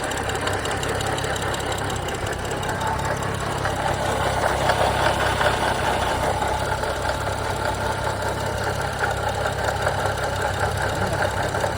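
2011 BMW 335i's turbocharged straight-six idling, with a fast, steady ticking rattle over the engine hum: the weird noise the owner cannot identify.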